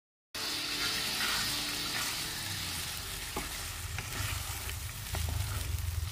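Meat and tomato sauce sizzling in a frying pan while being stirred with a spatula, with scattered clicks of the spatula against the pan. The sizzle cuts in suddenly just after the start.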